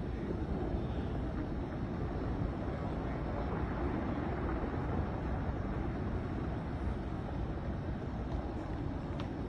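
Powder avalanche rumbling as snow pours down a mountainside: a steady, unbroken low rumble.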